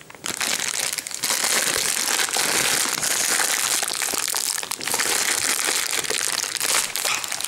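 Playmobil advent calendar packaging being handled and opened, a steady close crinkling and rustling that runs on without a break.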